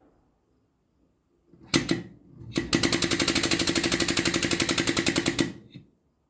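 Air-over-hydraulic treadle pump cycling under air, its air motor giving a fast, even chatter as it pumps fluid out through the disconnected ram line. A short burst comes first, then about three seconds of steady rapid pulsing.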